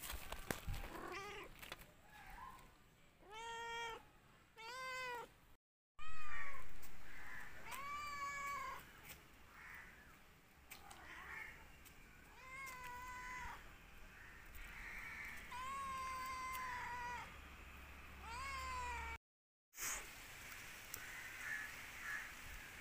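Domestic cat meowing over and over, about ten meows, each rising then falling in pitch.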